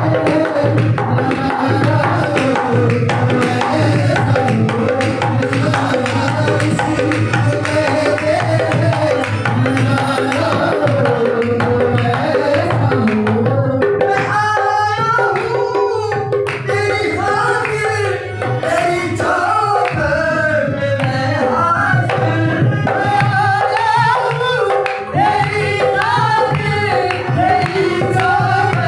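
Qawwali: male voices singing a devotional song over hand-drum accompaniment. The singing stands out more clearly from about halfway.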